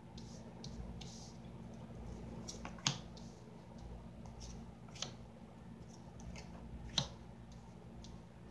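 Oracle cards being laid down one at a time on a cloth-covered table: light handling and sliding, with three sharp taps about two seconds apart as cards are set down, over a faint steady hum.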